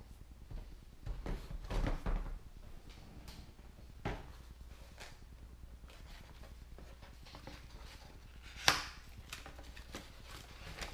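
Cardboard packaging being handled: a box sleeve slid off, a box flap opened and a paper packet pulled out, with scattered rustles and knocks and one sharp tap near the end, the loudest sound.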